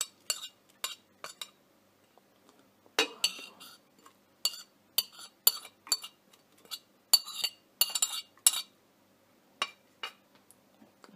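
Kitchen knife scraping and tapping on a ceramic plate, a run of sharp clinks in several clusters, as chopped parsley and garlic are pushed off into a glass blender jar.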